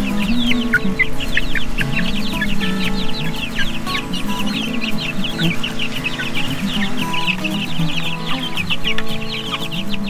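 A brood of young chickens peeping: many short, falling cheeps overlapping in a continuous chorus.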